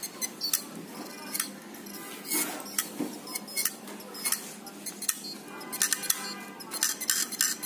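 Metal clicking and clinking as a hard disk drive is taken apart to get at its magnet: an irregular run of sharp taps, some with a short metallic ring.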